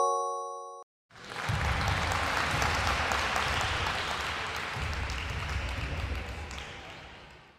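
A short bright chime marking the correct answer, then after a brief gap a recorded applause sound effect that runs for about six seconds and fades out near the end.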